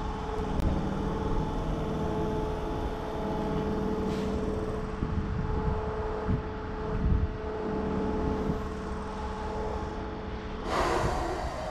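Keisei 3000-series electric train heard from inside the car: a steady rumble and hum with several unchanging tones. About ten and a half seconds in comes a short burst of hiss.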